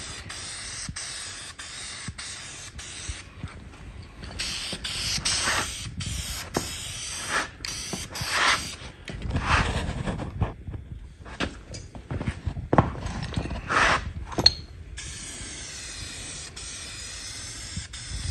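Aerosol spray-paint can hissing as blue paint goes onto a steel oil pan, on and off at first, then in a longer steady spray near the end.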